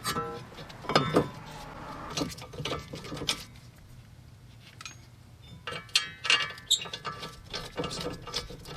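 Irregular metallic clicks and clinks of hand tools and steel brake parts being handled while a caliper bracket is fitted and its bolts are started, with a quieter stretch midway.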